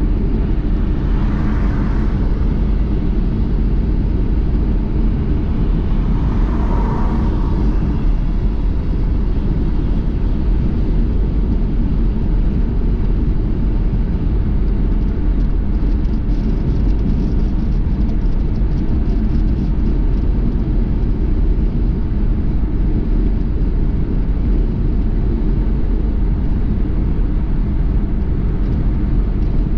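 Steady low rumble of a car driving, road and engine noise, with two brief hissing swells about a second and a half and seven seconds in.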